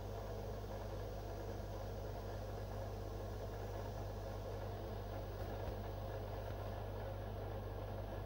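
Aquarium pump humming steadily, a low electric drone with a few fainter steady overtones.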